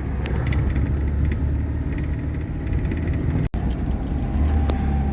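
GAZelle van's engine and road noise heard from inside the cab while driving: a steady low drone with a few faint rattles, broken by a momentary dropout about three and a half seconds in.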